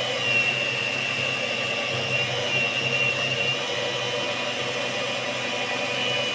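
Electric food mixer motor running steadily, beating cake batter with eggs and a little water in a large bowl.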